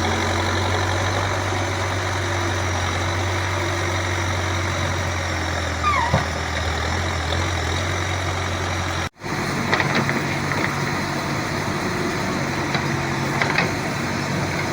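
Backhoe loader's diesel engine running steadily. About nine seconds in, the sound breaks off for an instant and resumes with a higher hum and a few clicks.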